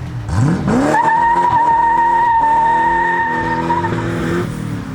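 A car accelerating hard on track: the engine revs climb quickly, then the tyres squeal with a steady high tone for about three seconds while the engine holds its revs, dying away near the end.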